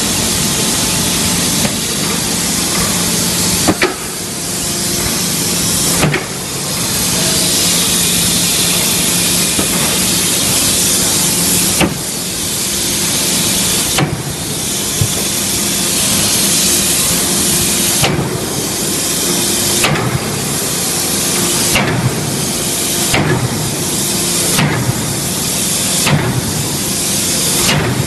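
Forging hammer at work: a series of sharp blows, a few seconds apart at first and then about every second and a half, over a steady loud hiss and a low machine hum.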